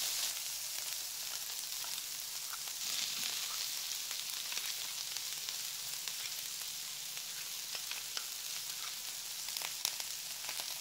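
Chopped cabbage, celery, chilli and curry leaves sizzling steadily in hot oil in a frying pan, with a few sharp ticks.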